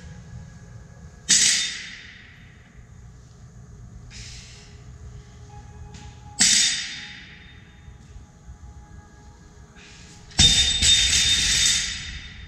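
A loaded barbell with bumper plates lands on a rubber gym floor twice, each landing a sharp clank with a metallic ring that dies away. About ten seconds in it is dropped, clattering and ringing for about two seconds.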